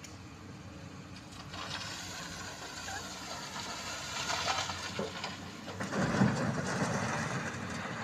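Excavator engine running while its bucket scrapes and grinds through rocks, with a louder crunch of rocks about six seconds in.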